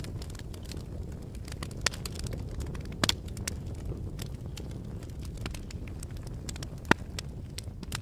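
A fire crackling: a steady low rumble of flames, with scattered sharp pops and snaps. The loudest pop comes near the end.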